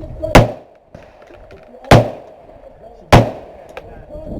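Gunshots, three sharp reports about a second and a half apart, each followed by a short ring of echo, with another shot starting right at the end.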